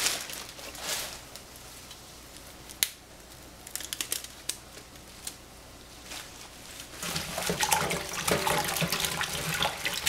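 A plastic produce bag crinkling as leafy greens are pulled from it, with a single sharp click near the 3-second mark. In the last few seconds, water sloshes and a metal saucepan rattles and rings in a stainless steel sink as the greens are pushed into the pan of water to be washed.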